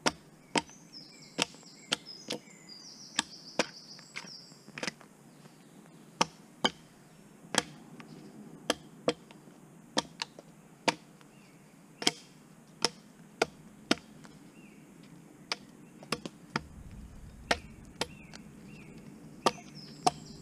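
Axe chopping wood: a long run of sharp, separate blows, roughly one every half second to a second, with short pauses between bursts.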